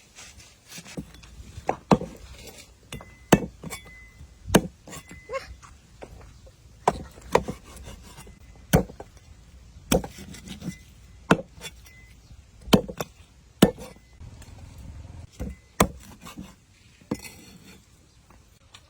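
Chopping on a wooden board: single sharp knocks, irregular at about one a second.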